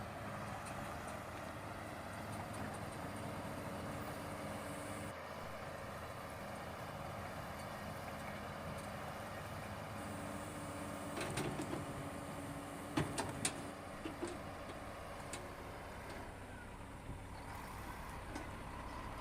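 Heavy diesel construction machine running steadily at work. About two-thirds of the way through come a few sharp knocks close together.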